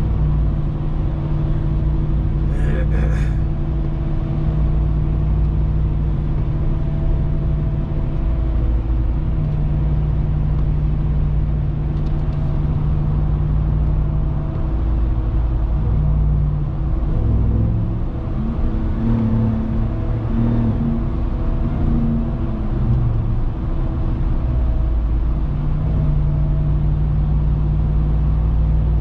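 The 2021 Ram 1500 TRX's supercharged 6.2-litre Hemi V8 droning steadily as the truck drives, over a constant haze of road noise. For several seconds in the middle the engine note wavers and shifts pitch as the speed changes, then it settles back to the steady drone.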